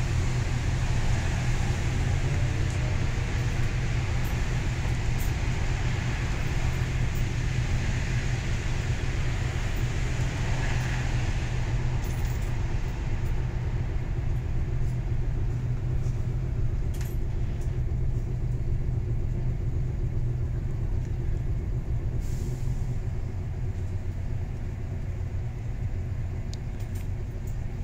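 Floodwater gushing and bubbling up out of street manholes, heard as a steady rushing hiss that eases somewhat after about twelve seconds, over a constant low rumble.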